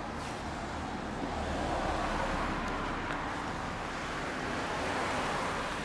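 Yamaha Cygnus-X FI scooter's single-cylinder four-stroke engine idling steadily through its muffler.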